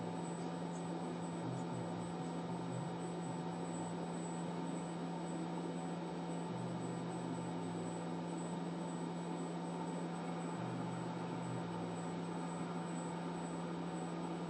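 Hot air rework station blowing steadily: an even hiss with a constant low hum.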